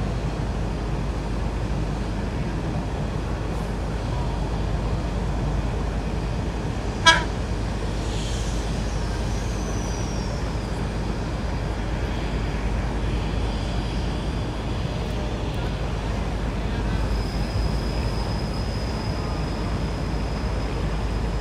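Steady low rumble of a train standing at a station platform, with one loud sharp knock about seven seconds in and a faint thin high tone later on.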